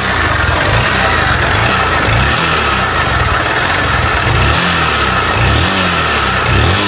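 Worn motorcycle engine running and revved up and down several times, with a rattle on acceleration that sounds like a rattlesnake. The mechanic takes it for a worn cylinder kit (cylinder and piston) on a bike that has run 120,000 km and is burning oil.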